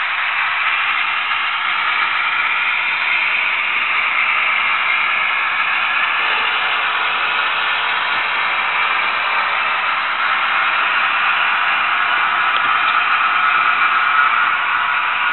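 HO-scale model hopper wagons rolling past on the track, a steady rushing noise of small metal wheels on rails.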